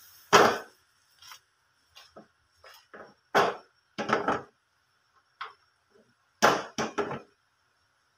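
Irregular knocks and clatter from a non-stick wok on a gas stove as the simmering squid is tossed and stirred, about a dozen short hits, the loudest near the start, about three and a half seconds in, and again about six and a half seconds in.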